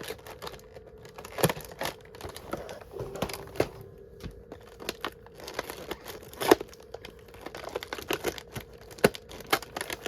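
Small packaging being unwrapped by hand: irregular crinkling and tearing of paper and plastic as an advent calendar box and its contents are opened, with sharper crackles about a second and a half in, in the middle and near the end.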